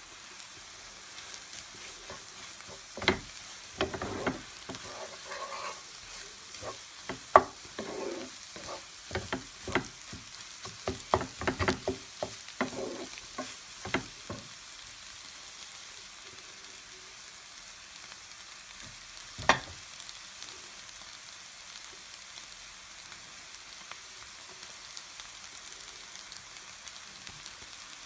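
Egg and rice noodles frying in a nonstick pan with a light, steady sizzle. A wooden spatula stirs and knocks against the pan in a quick run of taps from about three to fourteen seconds in, then gives one more louder knock later.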